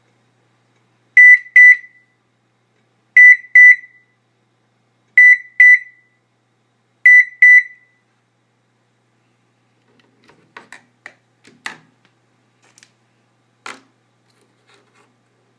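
A Lexus's wireless beeper sounding four loud double beeps in one high pitch, evenly spaced about two seconds apart. Scattered quieter clicks and knocks follow near the end.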